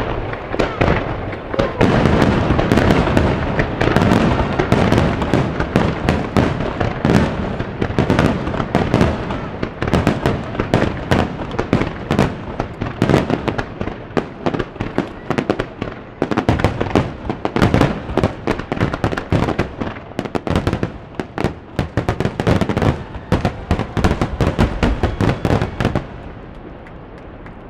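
Grand-finale fireworks barrage: aerial shells fired in a rapid star mine sequence, bursting in a dense, unbroken run of bangs that stops suddenly near the end.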